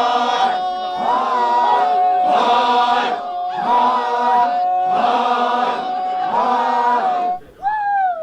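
A group of voices chanting in unison over a held note, in repeated phrases a little over a second apart. Near the end the chant stops and a single cry falls steeply in pitch.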